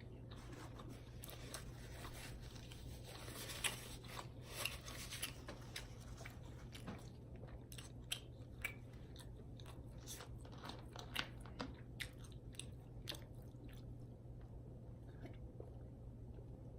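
A person chewing food close to the microphone, with scattered sharp wet mouth clicks and smacks.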